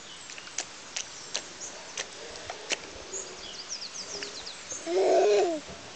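Birds chirping faintly over scattered small clicks, then about five seconds in a young child lets out a loud, rough-edged vocal cry lasting about half a second.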